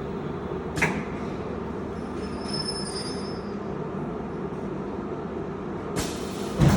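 Filter cartridge end cap welding machine running with a steady hum, a sharp click about a second in, a knock about six seconds in and a louder short clunk near the end.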